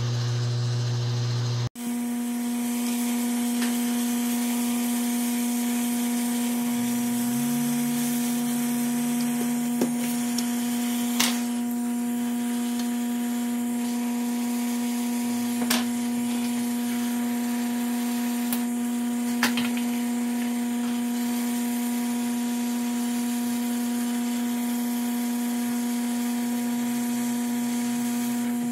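Hot air rework station blowing hot air onto a circuit board to desolder a surface-mount voltage regulator: a steady hiss of air over a steady hum, with a few faint clicks.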